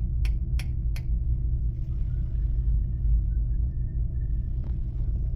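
Steady low rumble, with three or four sharp clicks in the first second, as a hex-jaw flush valve wrench is worked on the chrome of a commercial flush valve.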